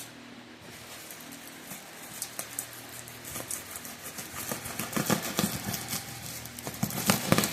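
Wrapped packaging being handled and pulled at: a run of crackles and rustles, sparse at first and growing denser and louder over the last few seconds.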